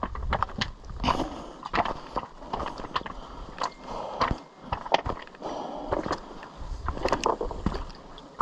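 Footsteps crunching and scraping over loose stony ground, in an irregular run of sharp steps.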